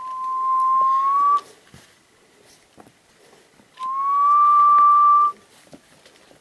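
A person whistling two long, steady notes, each gliding slightly upward; the first ends about a second and a half in, the second follows about two seconds later.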